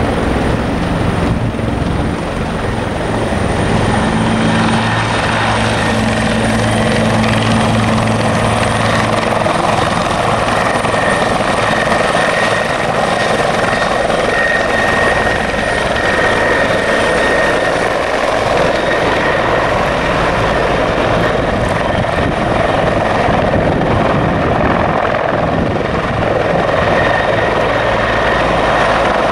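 Bell 412EP helicopter flying low and hovering, its four-blade main rotor and twin turboshaft engines running loud and steady, with a high turbine whine that comes up in the middle and again near the end.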